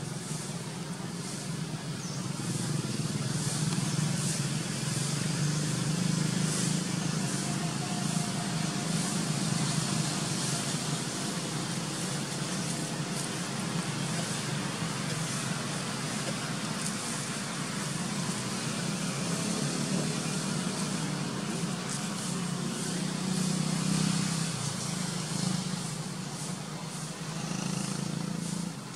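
Steady outdoor background rumble that grows louder about two seconds in and swells again a few seconds before the end.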